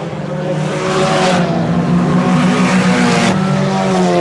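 Several IMCA Sport Compact race cars' engines running at speed around the dirt oval, their engine notes rising and falling as the cars pass.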